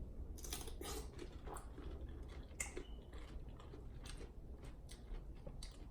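Close-miked chewing of a mouthful of cucumber, rice and sausage, with irregular crisp crunches from the cucumber.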